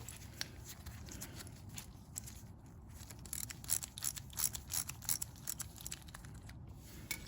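Scattered small clicks and rustles of hands handling a lawnmower carburetor as it is opened up, with a sharper click near the end, over a faint low hum.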